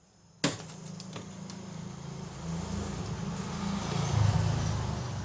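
A sharp click, then a motor vehicle going past, its noise swelling to a peak and fading away.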